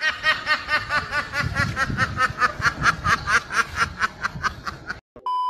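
A huddle of domestic ducks quacking in a rapid, even series, about six quacks a second, sounding like laughter. Near the end the quacking stops and a steady high-pitched beep begins.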